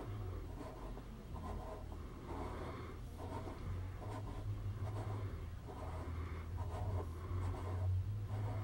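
Hornady seater die body being turned by hand in its threaded Lock-N-Load bushing: faint, repeated scratchy rasps of steel threads and fingers on the knurled die, in short turns, over a steady low hum.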